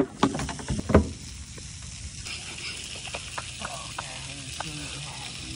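A few sharp knocks in the first second, then a steady hiss, with a higher-pitched hiss joining about two seconds in.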